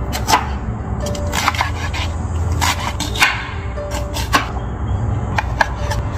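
Chef's knife chopping vegetables (napa cabbage, onion, cherry tomatoes) on a wooden cutting board: a string of sharp, irregular knocks of the blade against the board, over soft background music.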